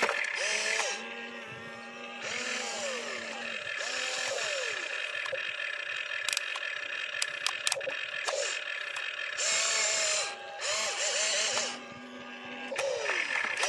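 Electric motors of a radio-controlled toy excavator whining in short runs, each spinning up, holding and winding down as the boom, arm and cab move, with bursts of hiss and scattered clicks and scrapes as the bucket digs into dirt and rocks.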